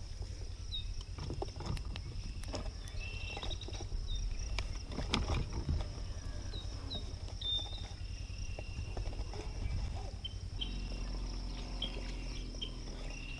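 Insects, crickets by the sound of it, shrill steadily over a low rumble, with short bird chirps scattered throughout. About ten seconds in, a low steady hum joins.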